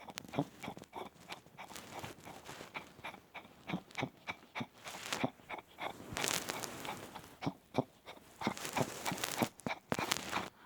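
A Chihuahua coughing in repeated fits of short, harsh bursts that come in clusters with brief gaps, stopping just before the end. The cough is from congestive heart failure with mitral and tricuspid valve disease.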